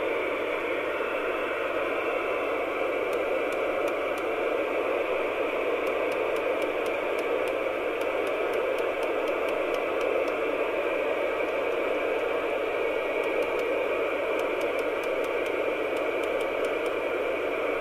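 Steady hiss of an empty channel from a Rotel RVC240 UK 27/81 FM CB radio's loudspeaker as it receives with no station on air, while its rotary channel selector is turned, with faint ticks along the way.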